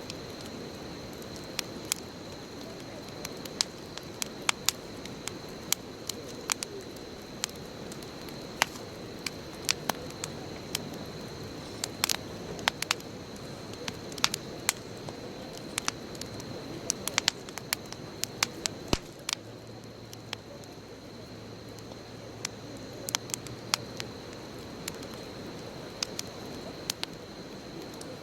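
Wood bonfire burning, with a steady low hiss and many sharp, irregular crackles and pops.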